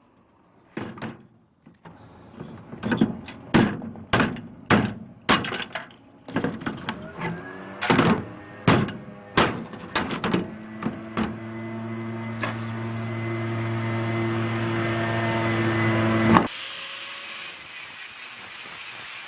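Metal scrap being knocked apart: about a dozen sharp knocks and bangs in irregular succession. Then a motor hums steadily for about six seconds, growing louder, and stops suddenly, followed by a high hiss.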